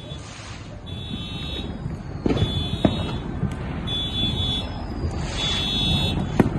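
An electronic alarm beeps steadily, a high tone sounding for under a second about every second and a half. Over the rumble of fireworks, sharp firework bangs go off a little past two seconds in, again shortly after, and just before the end.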